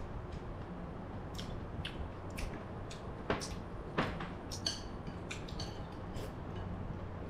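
Chopsticks and a metal spoon clicking against a ceramic soup bowl while eating noodle soup: a string of light clicks, with two sharper knocks about three and four seconds in, over a low steady hum.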